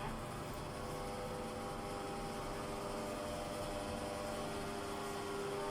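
Toshiba elevator running: a steady hum with a faint steady whine from the drive, rising slightly near the end.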